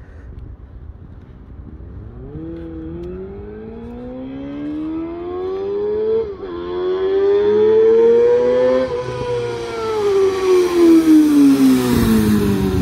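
Suzuki GSX-R600 K5 inline-four sportbike through a Mivv exhaust with the dB killer removed, accelerating hard up the road and past. The engine note climbs, dips sharply once at an upshift about six seconds in, and climbs again. It then falls steadily as the bike goes by close near the end, loudest just before it passes.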